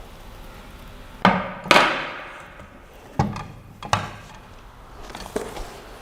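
Hard knocks of heavy 3D printer parts being handled and set down on a hard surface during unboxing: two sharp knocks close together a little over a second in, the second the loudest, then two more a couple of seconds later and a faint tap near the end.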